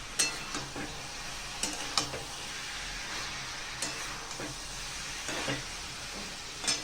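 A spatula scraping and knocking against a kadai as cabbage and potatoes are stirred, with a steady sizzle of frying underneath. The sharp scrapes come irregularly, about seven in all.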